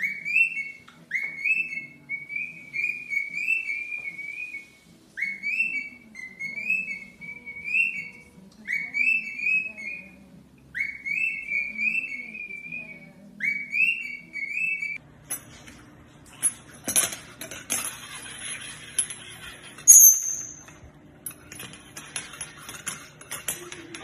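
Cockatiel whistling the same short phrase over and over, each phrase a quick upward sweep that breaks into a warble, with brief gaps between phrases. About fifteen seconds in the whistling stops and a rustling hiss takes over, with a sharp clink near the end that is the loudest moment.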